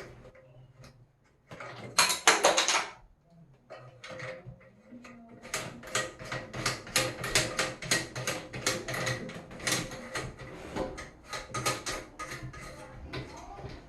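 Sharp clicking and rattling of hard plastic parts being handled and fitted while a toilet tank fill valve is installed, with a short rustling burst about two seconds in.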